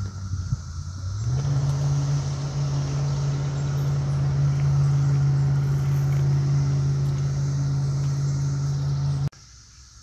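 Steady low hum of an idling vehicle engine, which rises slightly in pitch about a second in, holds even, and cuts off abruptly near the end. A faint, steady high drone runs beneath it.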